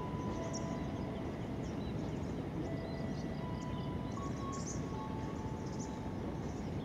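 Distant rumble of a diesel-hauled ballast train running on the track, with a faint thin squeal that shifts pitch a few times and birds chirping.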